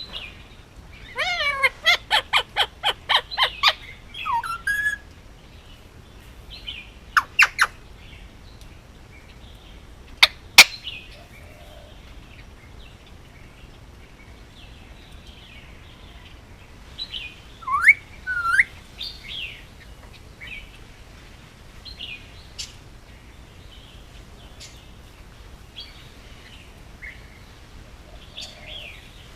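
Male Indian ringneck parakeet calling: a fast run of about ten sharp, shrill notes about a second in, then a few single shrill calls and some sliding whistled notes around the middle, with soft chirps in between.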